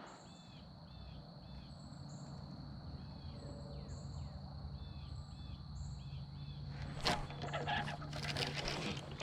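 A songbird repeating short chirps, a few a second with gaps, over a faint steady background hum. About seven seconds in, louder splashing and rustling noises start.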